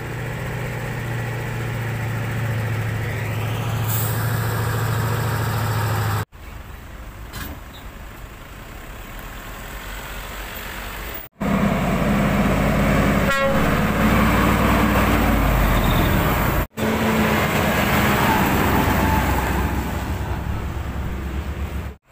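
Heavy diesel trucks passing on a road, their engines running steadily, heard in several short clips that cut off abruptly about every five seconds.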